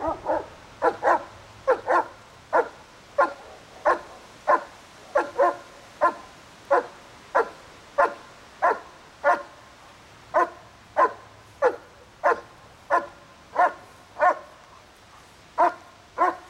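German Shepherd barking steadily and repeatedly at a training hide, one bark about every half-second to second with a couple of brief pauses: the hold-and-bark of bite-work training.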